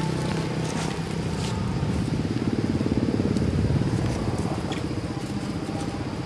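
A small engine running, its fast low pulsing growing louder about two seconds in and easing off after four, with a few faint clicks over it.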